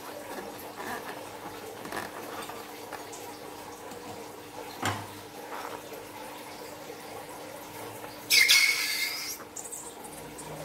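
Slime being squeezed out of a rubber balloon through its snipped neck into a dish of liquid: faint squelches and drips with a small click midway, then a loud spluttering hiss burst from the balloon's neck about eight seconds in, lasting about a second.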